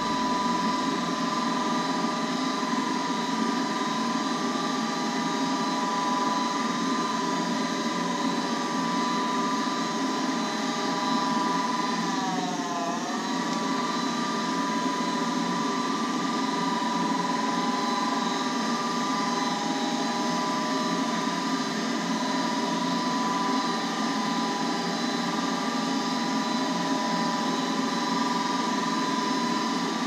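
Goodman furnace's draft inducer motor running with a steady whine; its pitch dips briefly and recovers about twelve seconds in.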